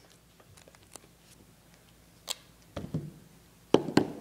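Handling noises from a duct tape roll and a craft knife on a cutting mat: a few faint ticks and a sharp click, then two louder knocks close together near the end as they are set down.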